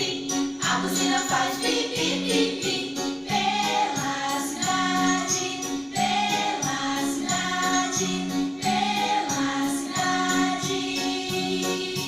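Children's song playing, with voices singing together over a steady beat and a bass line alternating between two notes.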